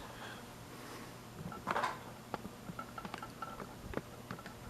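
Faint handling of a diecast model airplane and its packaging: a brief rustle, a few light clicks, and small quick ticks.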